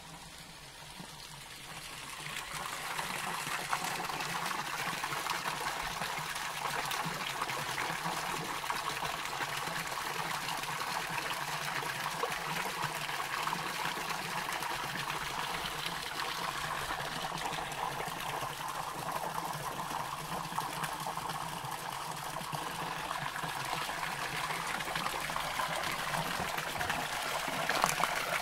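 Small waterfall trickling and splashing into a rock pool, a steady rushing hiss that grows louder about two seconds in and then holds.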